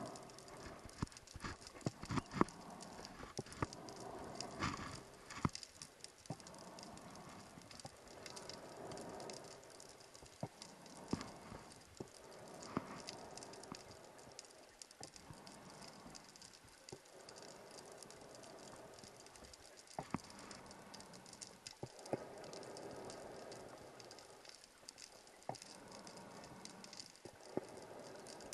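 Scuba diver breathing underwater through a regulator: a bubbling rush of exhaled air every three to four seconds, with scattered sharp clicks between the breaths.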